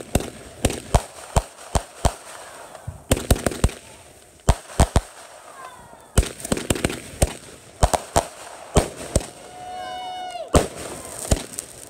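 Consumer aerial fireworks going off: an irregular run of sharp bangs and pops, several a second in clusters, with short lulls between volleys.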